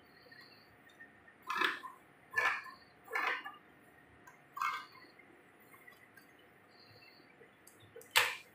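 Scissors cutting through blouse fabric in separate crisp snips, four of them in the first five seconds, then a louder one near the end as the cut pieces come apart.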